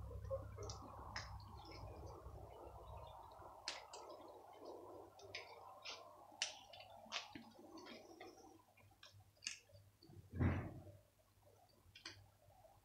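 Stray cats crunching dry kibble off paving stones: irregular, sharp little crunches and clicks. A single louder, dull thump about ten seconds in.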